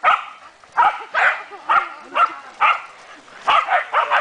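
Shetland sheepdogs barking in quick repeated barks, about two a second, with a brief pause around three seconds in.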